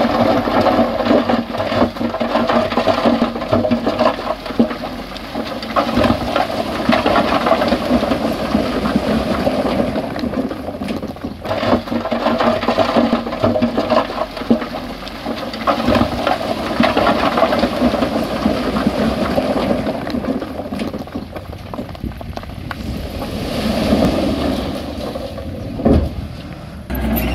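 Loose rocky soil and stones pouring and clattering, a steady rush full of small knocks, easing off near the end with one sharper knock.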